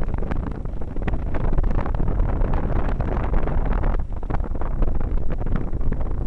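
Loud, steady wind noise from airflow buffeting the microphone of a camera on a paraglider in flight. It is strongest in the low end and rumbles without a break.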